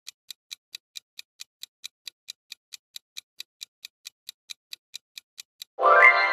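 Countdown-clock ticking sound effect: quick, even ticks at about four to five a second. Near the end the ticking stops and a bright ringing chime sounds, gliding up at its start and then fading slowly, marking time up as the answer is revealed.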